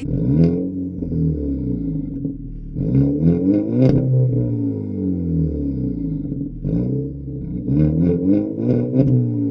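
Volkswagen Scirocco TSI engine revved at a standstill through an aftermarket exhaust with no valve and straight black tips. There is a rev about half a second in and a bigger one around three to four seconds. Near the end come several quick blips, each falling back to a steady idle.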